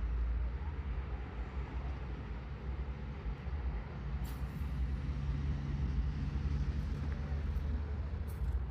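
Steady low rumble of distant road traffic, with a faint engine hum rising out of it in the middle.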